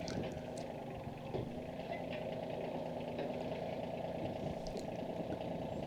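Kioti CK2610 compact tractor's diesel engine running steadily at low revs.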